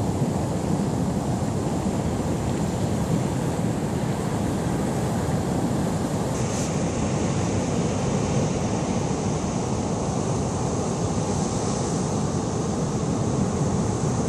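Heavy storm surf breaking over offshore rocks and washing up a sand beach: a steady, unbroken roar, with low wind rumble on the microphone.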